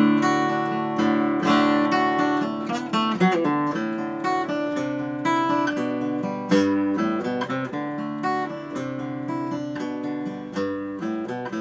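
A 1980 West German Höfner acoustic guitar played: chords strummed and notes picked, each attack ringing out.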